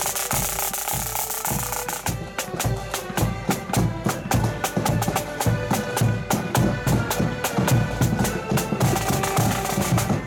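Marching accordion band playing: accordions over snare and bass drums, with the drums beating a steady, quick march rhythm.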